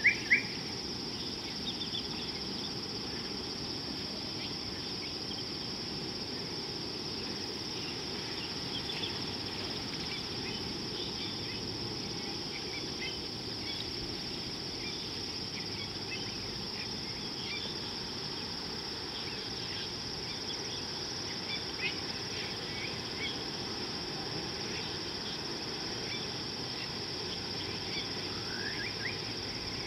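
Steady high-pitched drone of insects with scattered short bird chirps; a couple of louder chirps right at the start and a few rising ones near the end.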